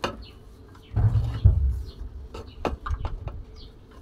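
Ugali, a stiff maize-flour porridge, being stirred and pressed in a cooking pot: dull thuds about a second in, then a few short knocks against the pot.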